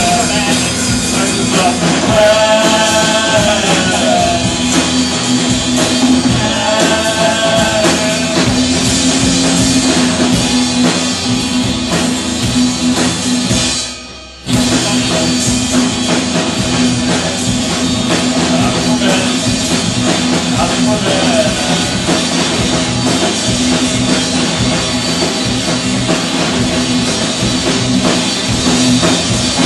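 Live rock band playing, with drum kit and electric guitar. About halfway through, the music dips away for under a second, then comes back in abruptly.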